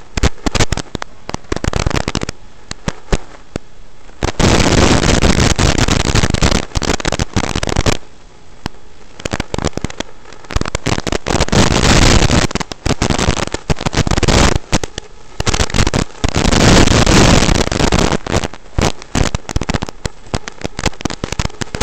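Harsh crackling static from an analog FPV drone's video link as recorded by the goggles' DVR, swelling into dense rushes of noise lasting a few seconds at a time.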